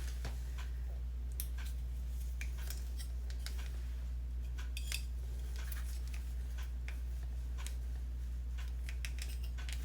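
Faint, scattered small clicks and rustles as a curling iron and hair are handled while a curl is held on the barrel, over a steady low hum.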